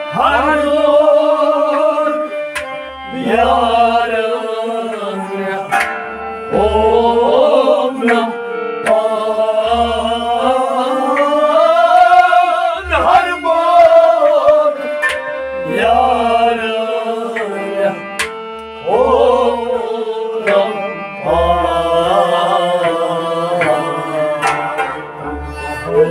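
Men singing a Kashmiri Sufi devotional song (kalam) in long, gliding, ornamented phrases, accompanied by a harmonium and a string instrument, with a deep drum stroke about every one and a half to two seconds.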